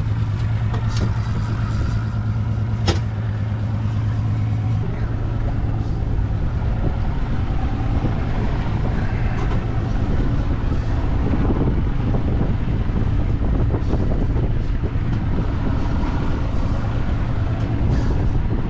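Boat engine running under way, a steady low hum that turns rougher and noisier about five seconds in. A single sharp knock about three seconds in.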